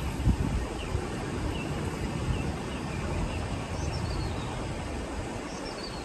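Wind gusting over the microphone in a low, uneven rumble, with faint, repeated short bird chirps. Two quick falling bird phrases come higher up, about four and five and a half seconds in.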